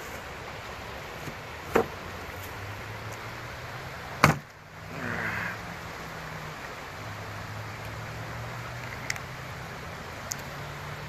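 Two sharp knocks, the louder one about four seconds in, as the phone is handled against a wooden picnic table, over a steady low hum. Near the end come a couple of faint clicks as the plastic cap comes off a juice bottle.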